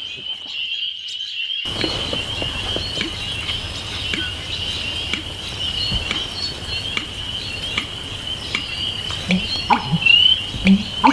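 Marsh soundscape: a steady high-pitched trilling chorus with scattered clicks. Near the end, a run of short, loud, deep gulping notes: the American bittern's pumper-lunk song.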